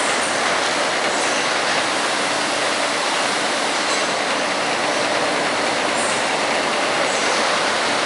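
Automated basket tumbler and conveyor line running as plastic crates move through it: a loud, steady machine din with a few faint high clicks.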